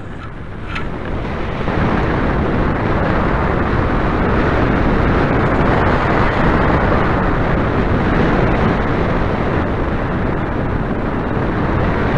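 Wind rushing over the microphone of a hang glider's on-board camera in flight: a loud, steady roar of air that builds over the first two seconds as the glider picks up airspeed, then holds.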